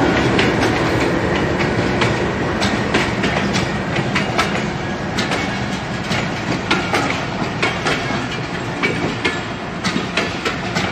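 Passenger train coaches rolling past, wheels clacking irregularly over rail joints and points under a steady rumble, the sound easing slightly toward the end.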